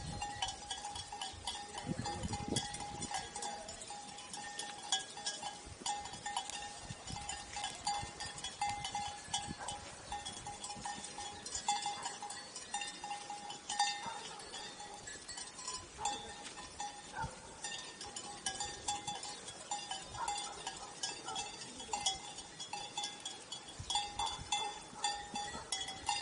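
Sheep bells on a grazing flock clinking and ringing unevenly, one mid-pitched bell note sounding again and again among the clinks.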